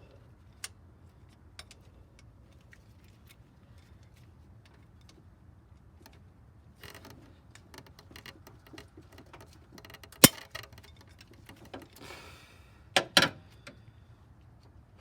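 Metal hand tools clinking and tapping, with scattered small ticks, one sharp metallic hit about ten seconds in and two strong hits in quick succession near the end.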